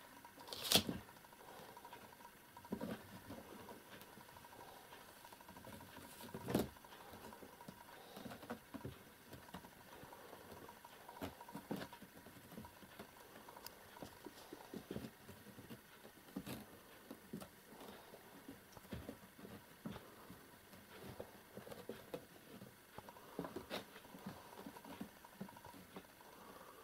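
Kittens scrambling and playing over felt boots and a pile of clothes: scattered light scratching, rustling and soft paw patter, with two louder knocks, one about a second in and one about six and a half seconds in.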